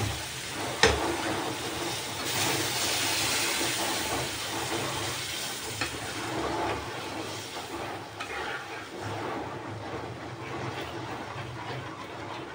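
Water sizzling and bubbling in a hot pan of freshly roasted semolina and sugar while the mixture is stirred, a steady hiss that eases off in the second half. A single sharp knock about a second in.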